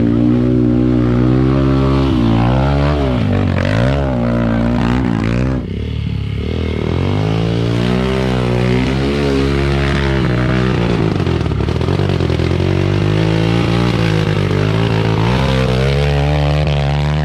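Dirt-bike engines revving hard, the pitch rising and falling again and again as the riders work the throttle, with a brief drop about five and a half seconds in. The bikes are under heavy load wading through deep mud and water.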